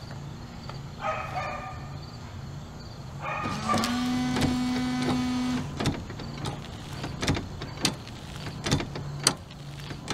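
Dodge Dakota windshield wiper motor switched on and driving the wiper arms through a freshly replaced linkage bushing. A whine rises and then holds steady for about two seconds, followed by a series of sharp clicks and knocks as the arms sweep the glass.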